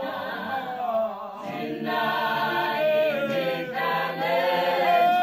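A Swazi traditional choir of mostly women's voices singing unaccompanied in chorus, with a short break a little after a second in before the voices swell again.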